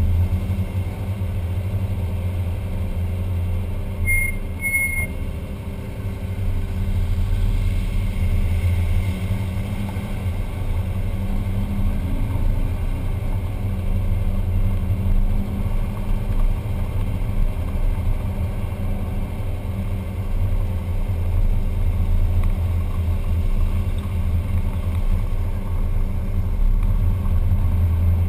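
VW Type 2 bus's air-cooled flat-four engine running steadily as the bus rolls along at low speed, heard from a camera mounted on the bus. About four seconds in come two short, high brake squeals.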